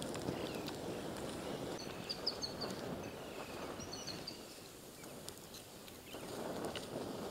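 A small bird chirping in two quick runs of short high notes, about two seconds in and again about four seconds in, over a steady low outdoor noise with a few faint scattered clicks.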